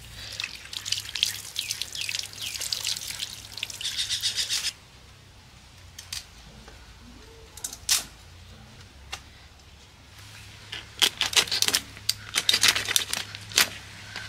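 A rohu fish being scaled with a blade: rapid, raspy scraping strokes in two spells, the first lasting several seconds and stopping abruptly, the second starting a few seconds before the end, with a few single scrapes in between.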